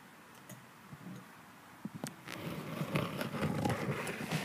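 Metal gyroscope apparatus being handled on a tabletop: a few light clicks and knocks, then from about halfway a busier stretch of metal rattling, tapping and scraping as it is set down and positioned.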